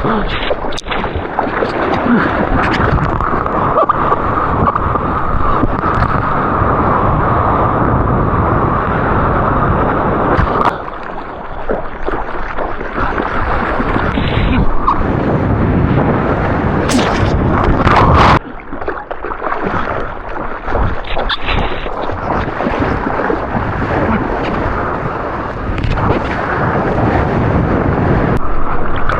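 Rushing, splashing seawater and wind buffeting the microphone of a GoPro carried through the surf. The noise drops suddenly twice, about eleven and eighteen seconds in.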